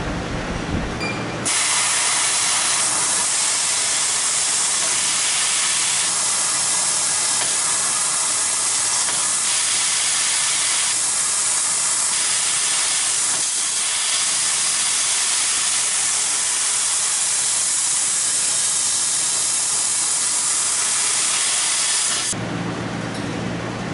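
Fiber laser cutter cutting thin metal sheet: a loud, steady hiss of the assist-gas jet from the cutting nozzle, which starts abruptly about a second and a half in and cuts off shortly before the end. A lower machine hum is heard before and after the hiss.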